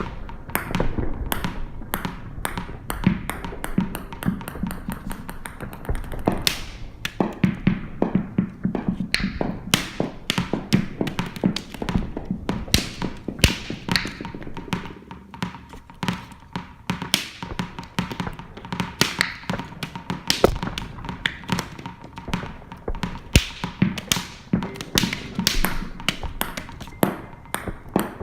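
Kinetic percussion objects tapping and clicking in a dense, irregular stream of sharp strikes, layered over a low steady rumble.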